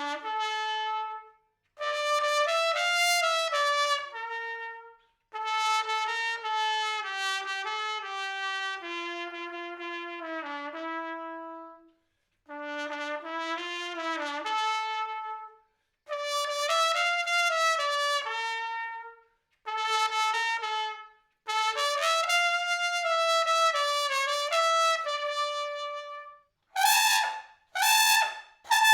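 Unaccompanied solo trumpet playing a slow melody in phrases broken by short breaths, recorded dry with no effects or reverb. Near the end it leaps to louder, higher short notes.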